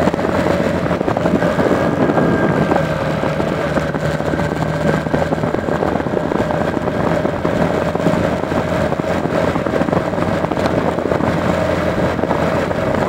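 A 2014 Honda 125 Fan motorcycle's small single-cylinder four-stroke engine runs steadily while the bike is ridden along a street, with road and wind noise.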